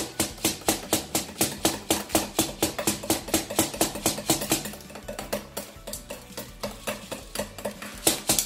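Wooden stick jabbed repeatedly down into rice in a plastic bottle, a quick even run of about four knocks a second, packing the grains tight.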